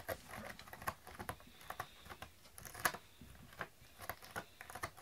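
A cat's claws scratching a corrugated cardboard scratcher: irregular clicks and scrapes, with one louder scrape about three seconds in.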